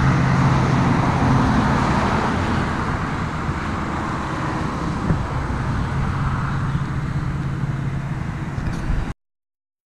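Traffic on a busy road: steady tyre noise with the engine hum of passing cars rising and fading, then the sound cuts off abruptly near the end.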